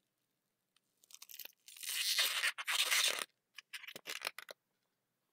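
A thin 160 latex twisting balloon being twisted and rubbed between the hands: a scratchy rubbing run from about two seconds in, then a few short rubs.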